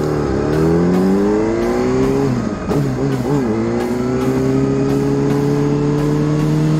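Yamaha R6 sport bike's inline-four engine pulling under throttle: the pitch climbs, falls at a gear change a little over two seconds in, then climbs slowly again.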